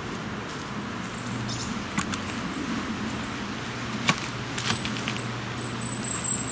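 Green bramble (blackberry) stems rustling and creaking as they are bent over one another by hand, with sharp clicks about two, four and just under five seconds in. A steady low hum runs underneath.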